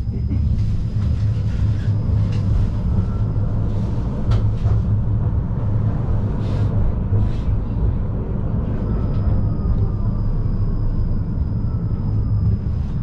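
Tram running along the track, heard from inside the car: a steady low rumble of wheels on rail with scattered clicks and knocks. A thin high whine comes and goes, and a faint tone slowly falls in pitch near the end.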